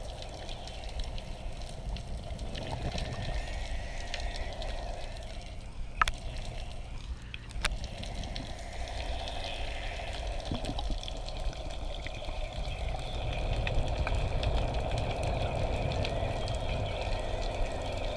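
Underwater sound through a camera housing: scuba divers' exhaled bubbles over a steady low rumble of the water. Two sharp clicks come about a second and a half apart midway, and the bubbling grows louder near the end.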